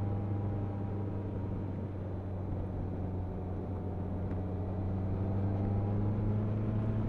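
Motorcycle engine running at steady cruising revs, heard from the rider's seat as an even hum, rising a little in pitch and level over the last couple of seconds.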